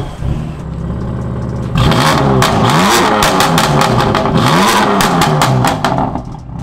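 BMW M4's S55 twin-turbo straight-six, running an MHD Stage 1 pops-and-bangs map with the exhaust flaps open, idling and then revved hard about two seconds in. The revs rise and fall twice, with rapid crackles and pops from the exhaust on the overrun, and it drops back near the end.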